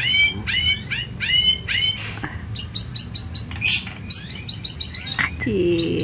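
White-rumped shama (murai batu) singing in its cage. It gives a string of repeated downward-sliding whistles, then a quick run of short, high chattering notes.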